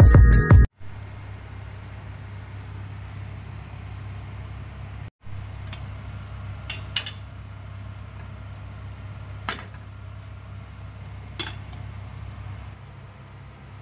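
A steel cooking pot and its lid clink lightly: a quick pair of clinks about halfway through, then two single ones a couple of seconds apart. Under them runs a steady low hum.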